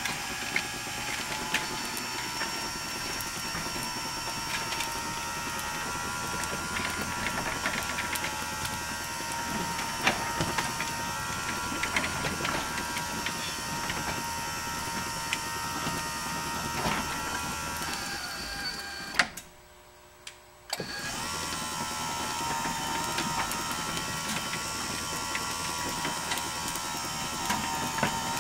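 Broten BR7000 side-mount garage door opener running a door: a steady motor whine with light rattles. It stops about 19 seconds in with a short clunk, goes quiet for about a second and a half, then starts up again and keeps running.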